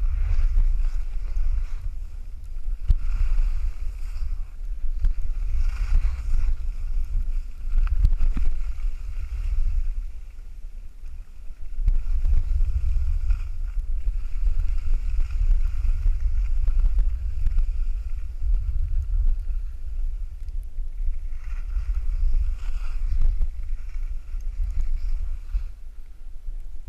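Wind buffeting the microphone of a camera carried by a downhill skier, a steady low rumble, with the hiss and scrape of skis on snow coming and going with the turns.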